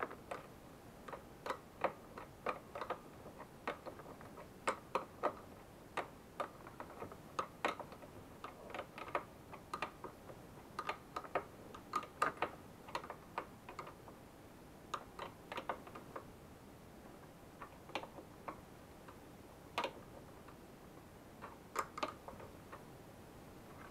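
Ratchet wrench clicking in short, irregular runs of a few clicks at a time as the ignition coil's mounting bolt is tightened.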